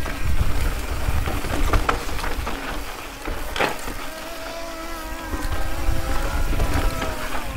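Mountain bike rolling fast down a rocky trail: wind rumbles on the microphone while the bike clatters and knocks over the rocks. From about four seconds in, a wavering pitched hum runs for a few seconds.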